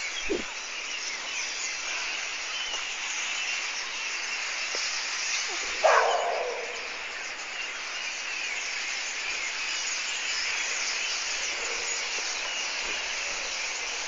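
A large flock of birds chirping and twittering constantly, many small calls overlapping. One louder, brief call stands out about six seconds in.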